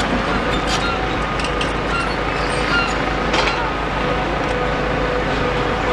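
Steady din of a demolition excavator working with a hydraulic crusher attachment, with a few short sharp cracks as it breaks concrete. Road traffic runs underneath.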